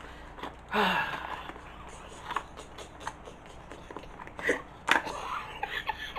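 Light handling noises at a table: scattered sharp clicks and taps, the loudest a pair near the end, with a brief falling vocal sound, like a short 'oh' or laugh, about a second in.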